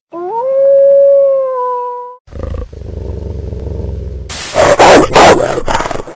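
Wolf sound effects: one howl lasting about two seconds that rises and then holds with a slight fall at the end, then a low hum with a thin high whine, then a loud, noisy wolf snarl near the end.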